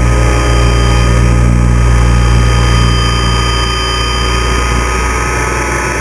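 Logo electric RC helicopter in fast flight, heard from the camera mounted on it: a steady drone of motor and rotor tones with a rush of wind noise, easing slightly in the second half.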